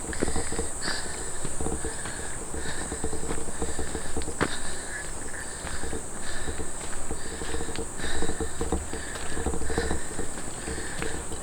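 Footsteps of someone walking on a dirt trail, a regular step roughly twice a second, over a steady high-pitched drone of summer insects.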